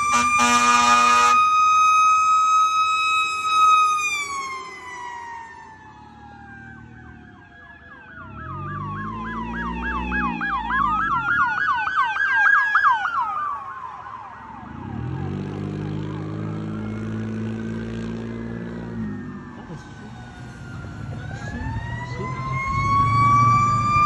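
Fire apparatus warning devices: an air horn blasts at the start. A Federal Q mechanical siren screams steadily, then winds down. A fast electronic yelp siren passes with a vehicle's engine. Near the end, a mechanical siren winds up again.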